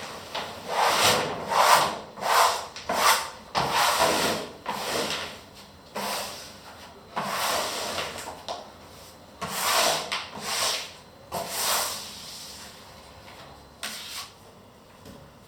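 Repeated rubbing strokes against a hard surface, like hand sanding or scraping. They come in an uneven run of about a dozen strokes with short pauses, and stop about twelve seconds in, with one faint stroke after.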